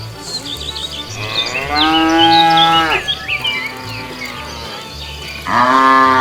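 Cows mooing: one long moo beginning just over a second in and lasting about a second and a half, and a second moo starting near the end. Short high chirps sound now and then in the background.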